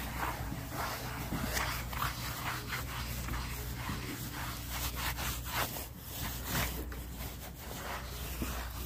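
Curry comb scrubbing over a horse's shaggy coat in quick repeated scratchy strokes, a few a second.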